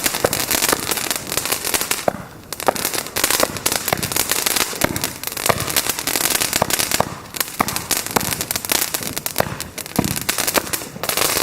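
Fireworks going off in a dense barrage: rapid crackling and popping with louder bangs scattered through, easing briefly about two seconds in and again around seven seconds.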